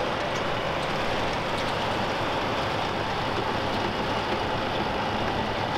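Tractor engine running steadily at working speed while raking hay.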